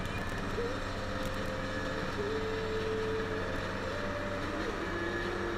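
Snow groomer's diesel engine running steadily, heard from inside the cab, with a thin whine that shifts to a new pitch several times as the machine works the slope.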